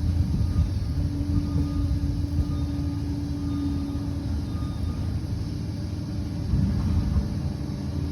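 Liebherr PR 746 crawler bulldozer's diesel engine running, a steady low rumble with a held hum over it.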